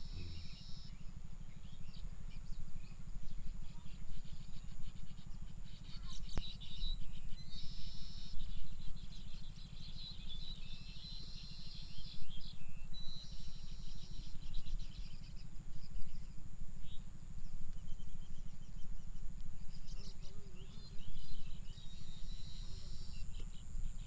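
Birds chirping in repeated high trilled bursts of a second or two each, over a continuous low rumbling noise and a constant faint high whine.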